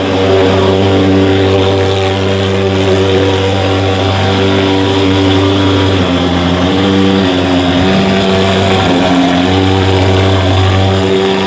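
Mosquito fogging machine running with a loud, steady engine drone; its pitch dips and wavers slightly in the middle before settling again.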